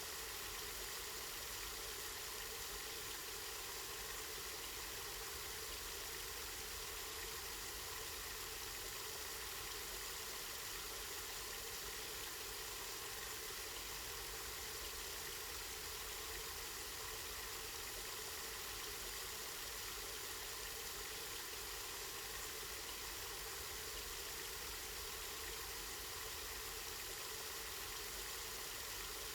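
Water from a spring flowing and splashing steadily, an even, unbroken hiss, with a faint low rumble underneath.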